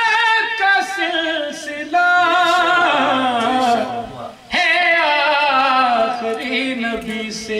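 A man singing a devotional Urdu poem (kalam) into a microphone. He holds long, wavering notes with heavy vibrato in three drawn-out phrases, with brief breaths between them.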